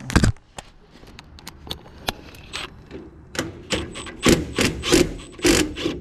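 Screwdriver working at a screw in a mini-split unit's housing: irregular metal clicks and scrapes, with a knock at the start and a run of louder sharp clicks from about three and a half seconds in.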